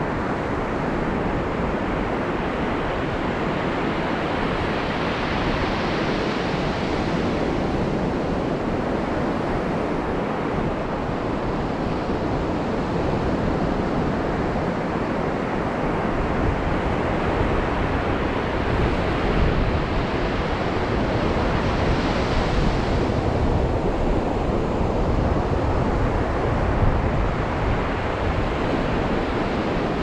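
Ocean surf washing steadily, with waves swelling and breaking about six seconds in and again a little past twenty seconds. Wind rumbles on the microphone underneath.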